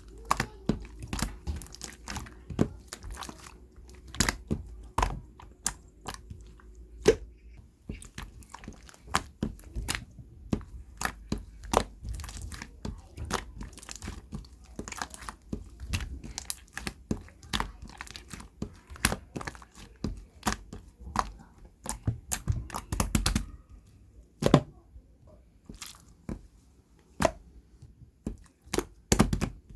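Close-up crunchy chewing and biting of food: irregular sharp crunches, several a second, with pauses between bites.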